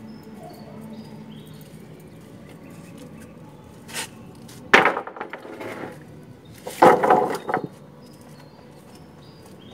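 Wooden planks set down and dropped onto a concrete floor: a light knock, then a loud clattering impact shortly after, and another run of wooden clatter about two seconds later.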